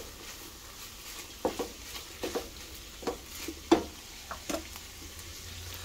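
A spoon knocking and scraping against a frying pan as chopped bacon is stirred into browned diced beef, a string of irregular taps with the sharpest about two-thirds through. Underneath, the meat sizzles faintly.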